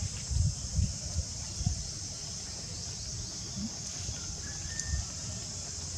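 Steady, high-pitched insect drone, with a few low thumps in the first two seconds.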